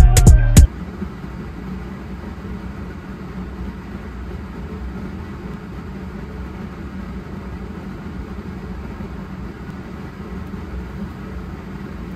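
Background music cuts off in the first second, then a steady low machinery drone with a constant hum.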